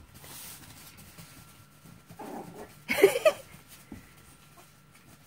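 Yorkshire terrier puppies at play, one giving a short, high yip about three seconds in, with a softer vocal sound just before it.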